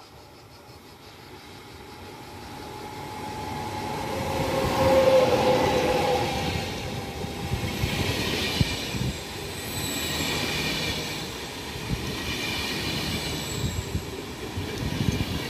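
A double-deck regional electric train approaching and running past along the platform. It grows louder over the first five seconds with a steady hum, then rumbles by with clicks from the wheels, while a high-pitched squeal comes and goes several times in the second half.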